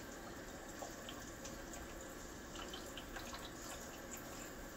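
Quiet kitchen room tone: a steady faint hiss with a few soft, small taps and clicks scattered through it.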